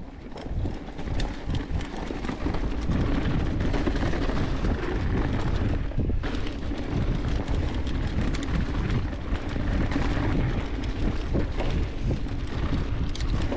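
Mountain bike rolling fast over dry fallen leaves on a dirt trail: a steady rumble of tyre noise and leaf crunch, with many small clicks and knocks from the bike over bumps.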